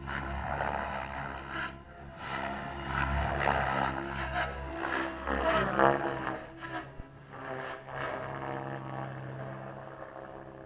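MSH radio-controlled helicopter flying 3D aerobatics. The rotor and motor drone rises and falls in pitch as the manoeuvres load the rotor. It is loudest about six seconds in, then fades as the helicopter climbs away.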